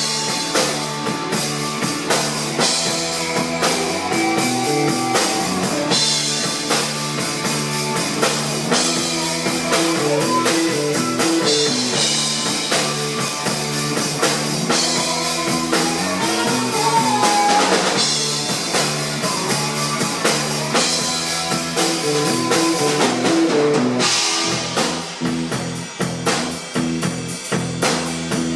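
Rock band playing a song at a sound check: drum kit keeping a steady beat under guitar and a moving bass line.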